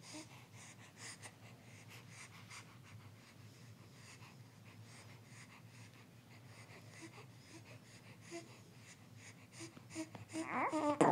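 Soft, regular patting on a newborn's back, about two pats a second, while he is being burped, with faint breathing and small grunts from the baby.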